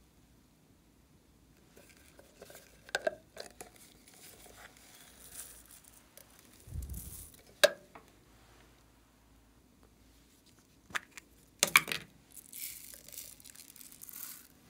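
Small plastic containers being handled, with several sharp clicks and knocks and a dull thud as one is set down. Near the end, small foam beads and sprinkles patter as they are scattered into a glass tray.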